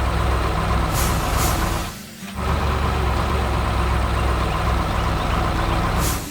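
Heavy machine engine running with a steady low rumble, dropping out briefly about two seconds in and picking up again, with short hisses about a second in and again near the end.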